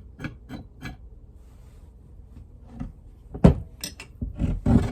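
Metal parts of a bench vise being handled during reassembly: a sharp loud clank, a second clank, then quick scraping strokes near the end.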